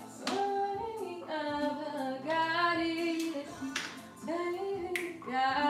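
A woman singing a melody with long held notes, with music.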